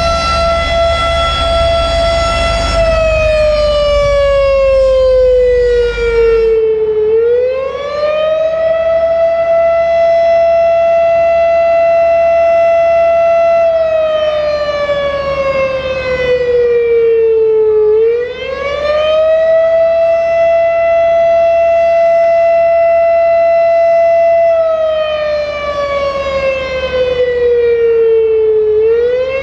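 Federal Signal Thunderbeam (RSH-10) outdoor warning siren, its reflector disc broken, sounding the attack signal: a loud tone holds steady, slides down in pitch over a few seconds, then swoops back up and holds again, about every eleven seconds. A low rumble underneath stops about six seconds in.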